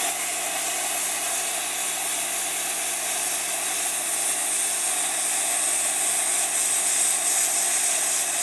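Sanjoe 100K plasma cutter making a drag cut through metal: the loud, steady hiss of the plasma arc and air jet, starting suddenly right at the start and holding even throughout, with a steady low hum underneath.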